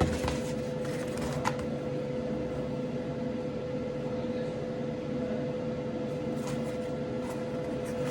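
Light handling noises, a few soft clicks and rustles of a power adapter box and its packaging, over a steady background hum.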